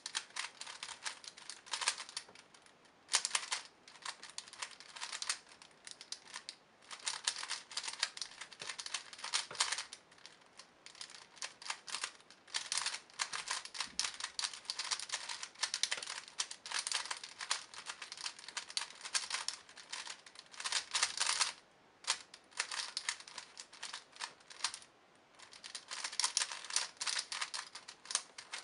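Megaminx twisty puzzle being turned fast by hand: rapid plastic clicking and clacking of the faces, in runs broken by brief pauses every few seconds.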